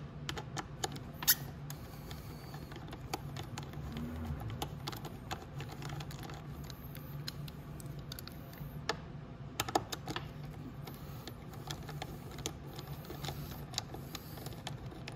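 Irregular light clicks and taps of a 5 mm Allen key and hex driver working small bolts out from under a dirt bike seat, with a sharper click about a second in. A low steady hum sits underneath.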